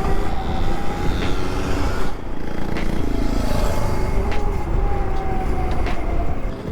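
A 76-volt modded Razor MX500 electric dirt bike's brushless motor whines while riding, its pitch rising and falling with the throttle. Heavy wind rumbles on the microphone, and a few sharp knocks come over bumps.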